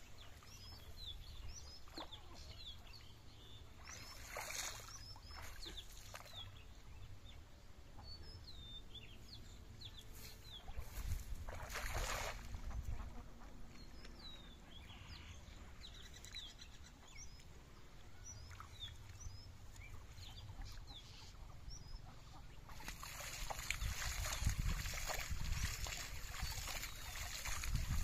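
Small birds chirping over and over, short quick calls, over a low rumble of wind on the microphone. In the last few seconds water splashes steadily as a cast net is hauled in through shallow paddy water.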